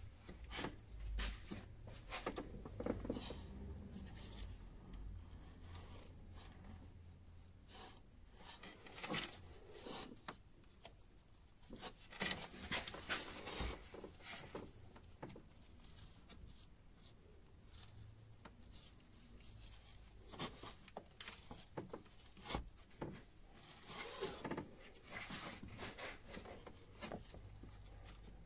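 Gloved hands working among hoses and parts in a car engine bay, making irregular rubbing and scraping sounds with scattered small clicks and knocks.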